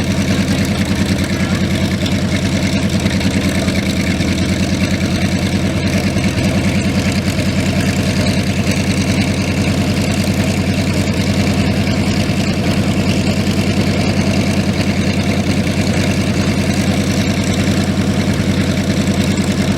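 Big radial aircraft engine idling steadily on the ground, with a fast even beat of firing pulses.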